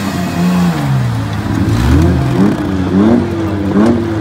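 Several six-cylinder demolition derby cars' engines revving up and down as they manoeuvre on the dirt, the pitch rising and falling repeatedly.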